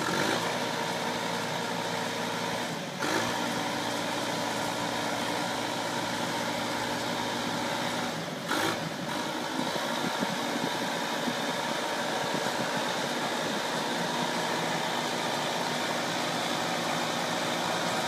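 Backhoe loader's diesel engine running steadily as the machine moves forward, with two brief knocks, about three seconds in and about eight and a half seconds in.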